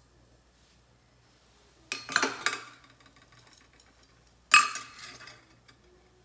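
Metal cookware clanking and scraping twice, about two seconds in and again about four and a half seconds in, each a short clatter with a brief ring: the thick steel griddle plate being handled during seasoning.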